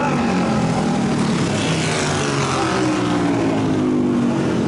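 Racing motorcycles passing at speed, their engine note falling in pitch as they go by.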